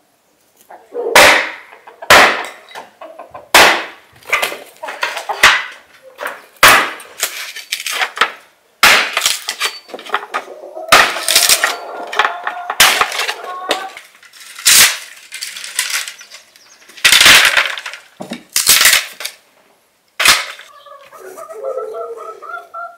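Hatchet chopping and splitting wooden planks: a string of sharp, loud cracking strikes, roughly one every second or so, stopping about three seconds before the end.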